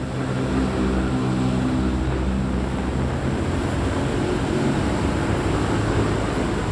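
Engine of a moving vehicle running at steady speed, a low, even drone with road and wind noise. The tone thins out about five seconds in.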